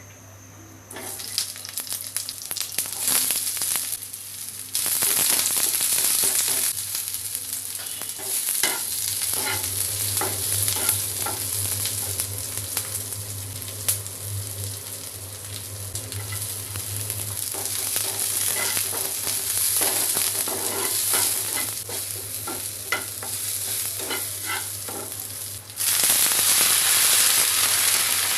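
Food sizzling in hot oil in a pan while being stirred, with many short clicks and scrapes of a spatula against the pan. The sizzle gets suddenly louder about five seconds in and again near the end, under a steady low hum.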